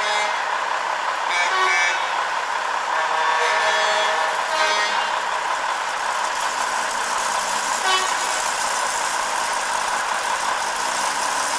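Steady background noise of vehicles at a truck show, with a few short, higher-pitched sounds over it in the first five seconds and a brief sharp one about eight seconds in.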